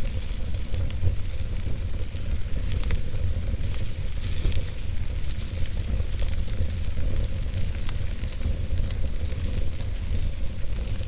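Fire burning in a fireplace: scattered sharp crackles and pops over a steady low rumble and hiss.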